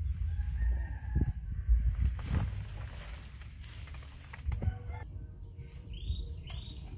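Birds calling: a drawn-out crow-like call about half a second in and two short high chirps near the end. Underneath are a low wind rumble and a few sharp rustles of leaves and branches from a climbing monkey.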